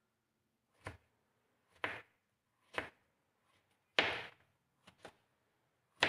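Kitchen knife cutting peeled bottle gourd on a plastic cutting board: the blade knocks against the board about once a second, six strokes in all.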